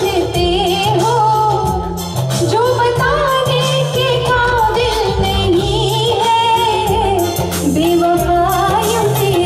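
A woman singing a Bollywood-style song live into a microphone, her melody ornamented and wavering, backed by keyboard with a repeating bass line and a steady beat.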